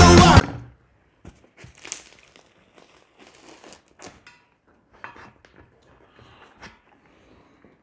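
Loud music cuts off abruptly at the start, followed by the faint crackle and crunch of a crusty bread loaf's crust as it is torn apart by hand, in a scatter of short crackles.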